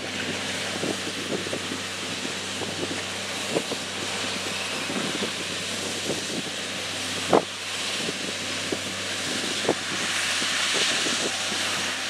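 Loram shoulder ballast cleaner at work: the machine's engines hum steadily under a loud hiss, with scattered sharp clicks and one louder knock about seven seconds in. The hiss swells near the end.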